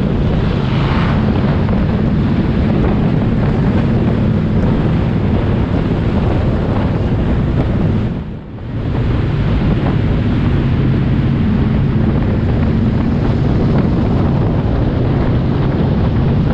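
Bomber-class stock car engines running hard in a racing pack, heard through heavy wind buffeting on a hood-mounted camera microphone. The sound dips briefly about halfway through, then comes straight back at full level.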